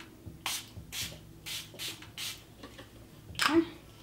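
Finger-pump bottle of Milani Make It Last setting spray misting a face: five quick hisses about half a second apart. A louder, short breathy sound follows near the end.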